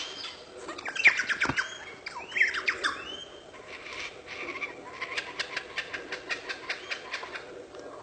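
Superb lyrebird singing a medley of mimicked bird calls: sweeping whistles and squawks in the first few seconds, then a fast run of sharp repeated notes, about four or five a second.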